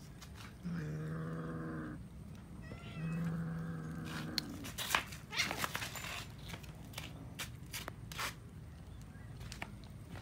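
Cats eating raw chicken: a cat gives two low, drawn-out growls of about a second each early on, with a faint kitten meow between them, then chewing and tearing at the meat and bones with a run of sharp clicks and crunches.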